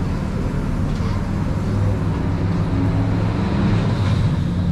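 City street traffic: a steady, loud rumble of vehicle engines.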